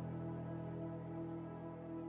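Slow ambient background music of long held chords.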